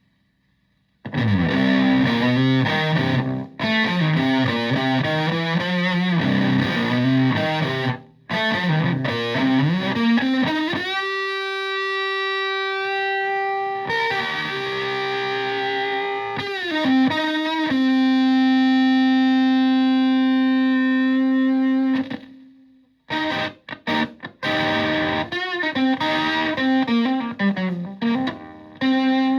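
Single-coil Stratocaster played through a Marshall Supa Fuzz (Tone Bender MKII) fuzz pedal into a Twin Reverb-style amp, with a thick fuzz distortion. After about a second it plays a moving riff, then long sustained held notes, then short choppy stabs near the end.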